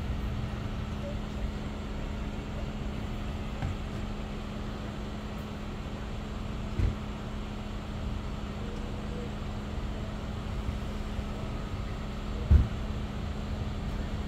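Vehicle engine idling with a steady low hum. Two dull thumps break in, one midway and a louder one near the end.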